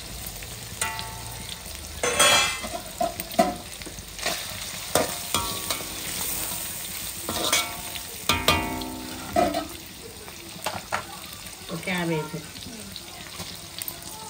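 Chicken and scrambled egg sizzling in oil in a wide wok (kadai), with a metal spatula scraping and stirring against the pan in repeated strokes, several of them ringing.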